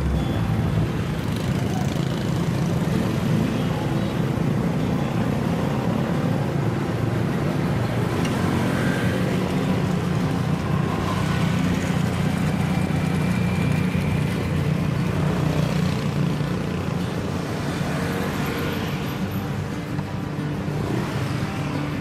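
Steady city road-traffic noise with a low, constant engine hum.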